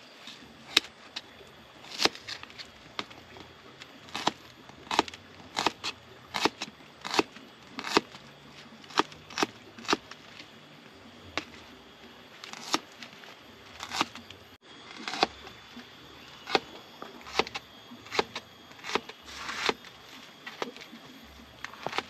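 Knife slicing cooking spices such as shallots, each cut a sharp click, coming irregularly about one or two a second.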